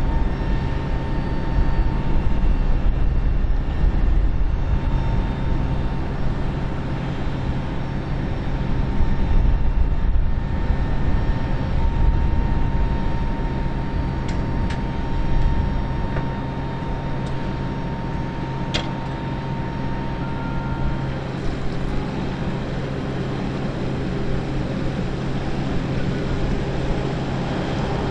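Steady low mechanical drone of ground-service vehicles and equipment around a parked airliner, with a thin steady whine that stops about three quarters of the way through. A single sharp click comes shortly before the whine stops.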